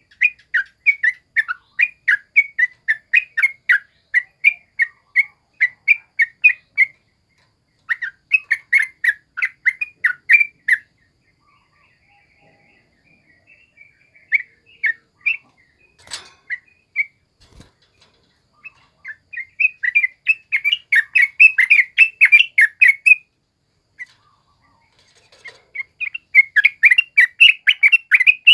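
Yellow-vented bulbul (trucukan) singing in long bouts of rapid, chattering notes, about three a second, in the bird's wild-type ngalas song. The song thins to scattered notes for a few seconds midway, a single sharp click comes about 16 seconds in, and the loudest bouts come near the end.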